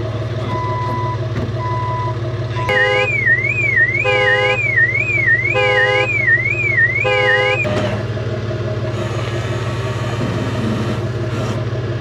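An electronic alarm siren warbling up and down about twice a second for about five seconds, with four horn-like blasts about a second and a half apart. It plays over the steady low hum of an idling vehicle engine.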